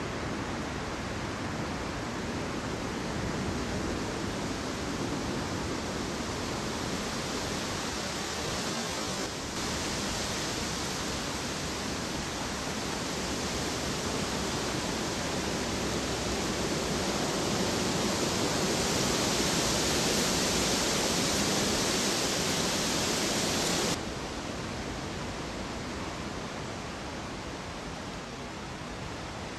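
Steady hiss of recording noise with no distinct events. It grows a little louder past the middle and drops abruptly in its upper range about three-quarters of the way through.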